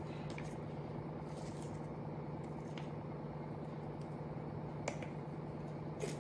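A few light clicks and taps of a spoon and a plastic salt container as salt is spooned into a steel mixer jar, the sharpest click about five seconds in, over a steady low hum.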